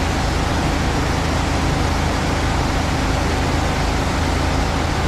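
Steady rushing of water pouring from spouts into a trout holding tank, with a low hum underneath.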